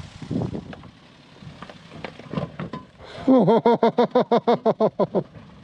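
A few seconds of low knocks and rattles, then a person laughing in a fast run of high, pulsing bursts for about two seconds.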